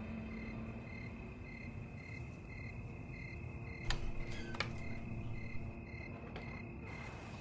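Crickets chirping steadily at night, a regular chirp about twice a second, over a low room hum. About four seconds in, a couple of sharp clicks from a door handle and latch as a bedroom door opens.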